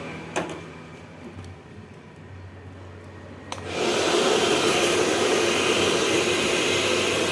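Han River hair dryer switched on about three and a half seconds in after a click, then running steadily: a fairly strong blast of air with a steady motor tone.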